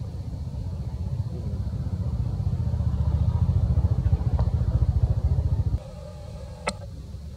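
An engine running with a low, fast pulsing beat, growing louder over the first few seconds and cutting off suddenly about six seconds in.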